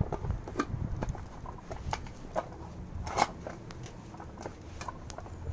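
Wood fire crackling in a steel fire pit, with scattered sharp pops, the loudest about three seconds in.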